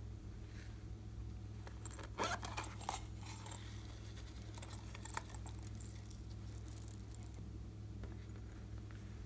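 Slime being handled and mixed, with a cluster of small sticky clicks and crackles about two to three seconds in and a few more later, over a steady low hum.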